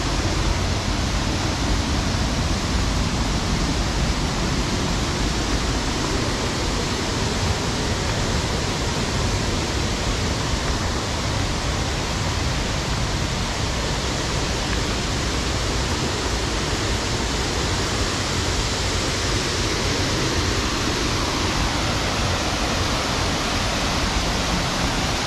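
Steady rushing of falling water from the Yeh Hoo waterfall, an even, unbroken noise.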